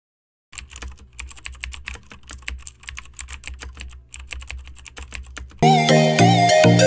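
Computer keyboard typing sound effect: a quick, uneven run of key clicks over a low hum, starting about half a second in. About a second before the end, loud electronic music comes in.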